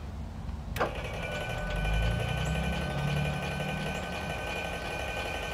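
Electric trailer tongue jack switching on with a click about a second in, then its motor running with a steady whine, raising the jack all the way up.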